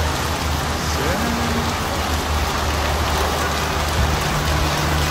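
Rain falling steadily, a continuous even hiss, over a low steady hum.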